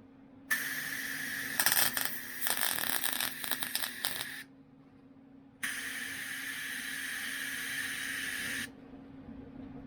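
MIG welder laying two short welds on the VW Beetle's steel body panel, each a few seconds of crackling, sputtering arc that starts and stops sharply, the first more spattery than the second, over a steady low hum.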